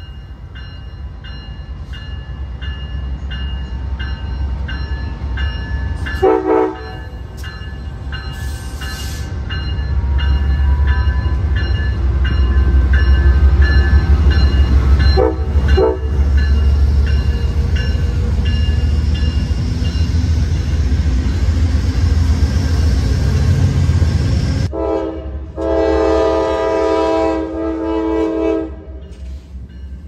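A train passing with a heavy low rumble that builds up, as its multi-tone horn sounds a short blast and then another short blast. The rumble cuts off sharply, and a longer, louder horn blast follows near the end.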